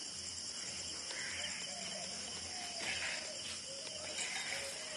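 Steady, high-pitched pulsing trill of crickets chirring in the early-morning air, with a few short chirps and calls over it.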